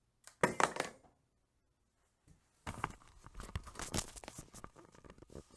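Crinkling, rustling and clicking handling noise: a short burst about half a second in, then a longer stretch of crackles and clicks from about three seconds on.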